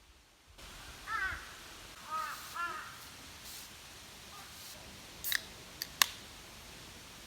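A crow cawing, three harsh calls in the first few seconds over a steady background hiss. Then come a few sharp clicks, the loudest about six seconds in.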